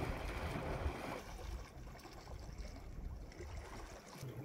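Wind rumbling on the microphone over the sea washing against rocks. The water's hiss drops away after about a second.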